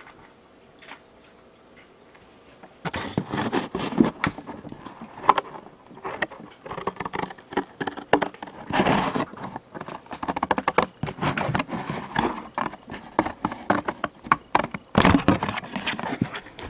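Close-up scraping, crackling and tapping of a Funko Pop cardboard box being handled and taken apart, starting about three seconds in after a quiet moment.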